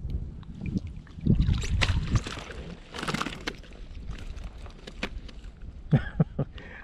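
Water splashing and scattered knocks and rustles on a plastic fishing kayak as a hooked flounder is lifted out of the water and swung aboard. The noisiest stretches come about a second in and again around three seconds in.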